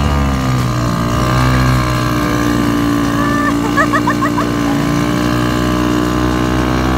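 Small engine of a motorised bumper boat running steadily under way, its pitch drifting slightly up and down. A few short high chirps come about three to four seconds in.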